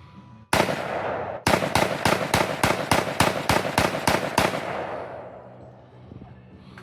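Rapid gunfire: a loud report about half a second in, then a fast string of about a dozen shots at roughly four a second, echoing as it fades after about four and a half seconds.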